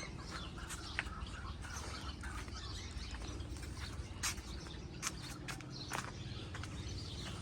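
Aviary birds chirping in short, scattered calls over a steady low background noise.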